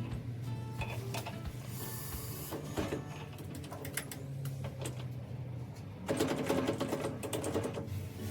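Small benchtop lathe running with a steady motor hum and scattered clicks, louder and busier for about two seconds near the end.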